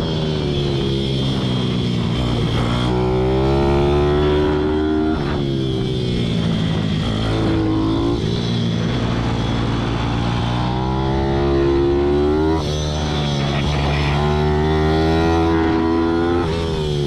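Racing pit bike's single-cylinder engine heard from the bike itself under hard acceleration: the revs climb steadily, then drop sharply about five times as the rider changes gear and slows for corners, before climbing again.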